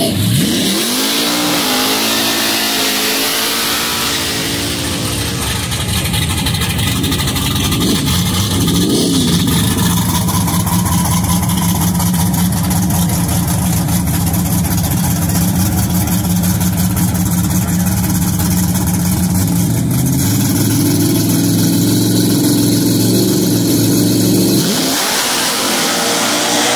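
Drag-racing pickup trucks' engines: revs falling away after a burnout, a quick throttle blip, then a steady, lumpy idle while staging. Revs are held higher on the line for a few seconds before the trucks launch near the end.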